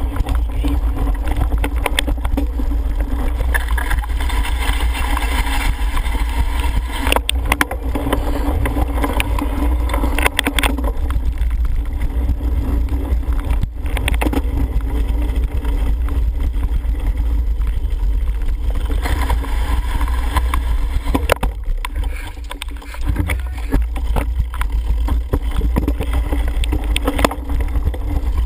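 Steady wind rumble on a helmet-mounted camera's microphone while riding a cyclocross bike over grass and dirt, with a few sharp knocks from bumps in the course.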